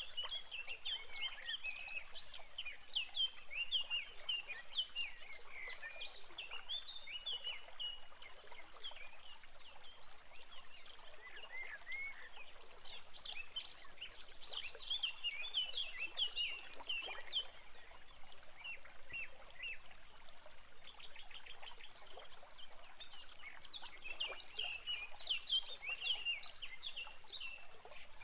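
Small songbirds chirping and twittering in quick runs of short high notes, busiest at the start, in the middle and near the end, over a faint steady hiss.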